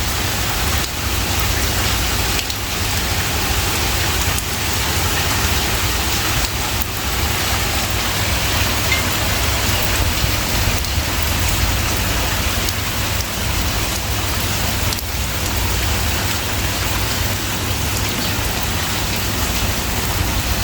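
Steady rain falling: an even, unbroken hiss at a constant level.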